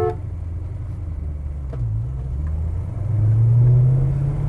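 1966 Oldsmobile 442's 400 cubic inch V8 with four-barrel carburetor and dual exhaust pulling on the road. The engine note dips briefly near the middle, then rises in pitch and swells as the car accelerates.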